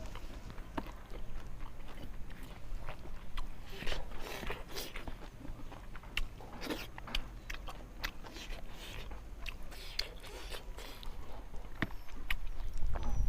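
Close-miked eating of fish curry: steady chewing with irregular wet mouth clicks and smacks, and now and then a crunch or scrape.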